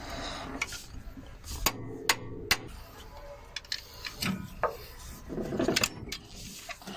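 Scattered sharp metallic clicks and knocks with scraping, as a rusted water pump is worked loose by hand from an excavator's engine block.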